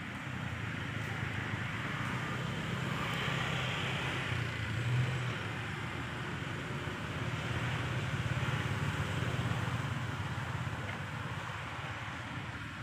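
Steady engine noise of a motor vehicle, swelling and easing over several seconds.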